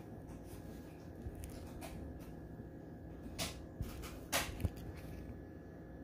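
Quiet room tone with a steady low hum and a few brief, soft rustling noises; the two clearest come about three and a half and four and a half seconds in.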